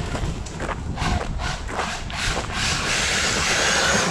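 Maverick Quantum Flux Plus RC monster truck on Traxxas Sledgehammer tyres, run on 4S, driving over rough ground with irregular knocks for the first couple of seconds, then a steadier hiss as it runs on.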